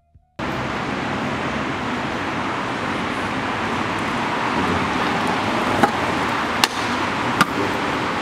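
Steady city street traffic noise, cutting in abruptly about half a second in, with three sharp clicks about a second apart in the second half.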